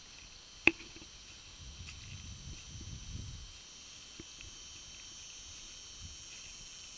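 Cicadas buzzing steadily in pine trees, a high shrill drone. A single sharp click comes under a second in, and a soft low rumble swells and fades a little later.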